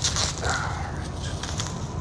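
Plastic bubble-wrap packaging crinkling and crackling as it is handled, with a burst of sharp crackles in the first half second.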